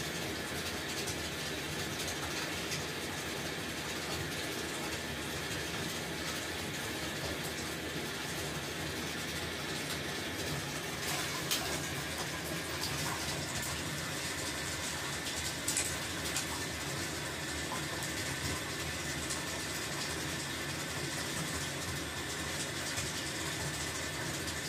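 Bathtub tap running steadily, water pouring into the tub as it fills, with a couple of brief knocks partway through.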